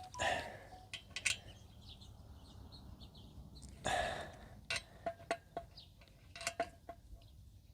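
Metal clinks and short scrapes of a 14 mm socket and wrench working the mounting bolts, hand-tightened gently to snug them up. Irregular sharp clicks, with a longer scrape near the start and another about four seconds in, and faint bird chirps behind.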